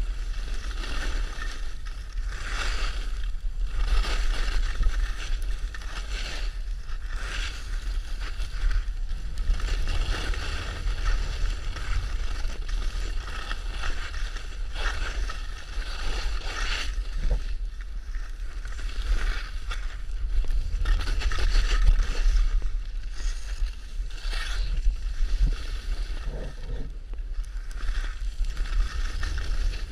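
Skis sliding and scraping over packed snow, a hiss that surges every second or two, over a steady low rumble of wind buffeting the camera microphone.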